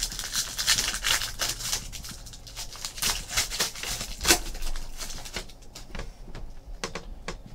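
Foil baseball-card pack wrapper crinkling and tearing as it is opened and handled, with the cards being slid out. A dense run of crisp rustles and snaps thins to a few scattered ticks in the second half.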